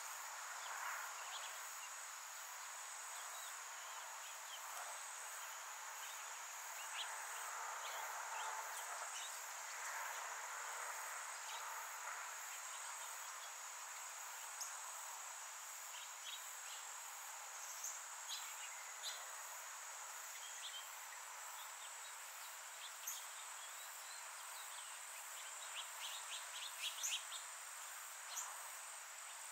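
A steady, high, unbroken insect trill, with scattered short chirps and ticks over it and a quick run of about eight ticks near the end.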